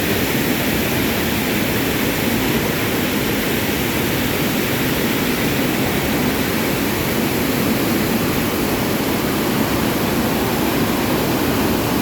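River in flood, its fast, high water rushing with a loud, steady noise.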